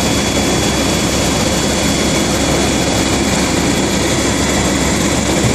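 Helicopter turbine and rotor noise, a loud steady drone with a thin high whine held throughout.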